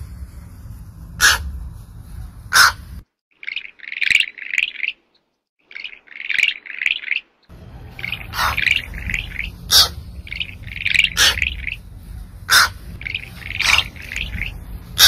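Birds chirping in quick clusters of high notes, with sharp clicks scattered between them. A steady low background hum cuts out for a few seconds about three seconds in, then returns.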